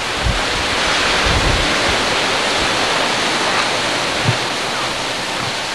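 Strong wind blowing across the camcorder microphone over the wash of a choppy sea: a steady hiss with a few low thumps from gusts hitting the microphone.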